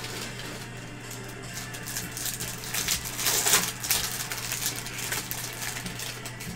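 Plastic wrapper of a trading-card cello pack crinkling and tearing open, with the cards sliding out; the rustling is loudest about three to four seconds in. A steady low electrical hum runs underneath.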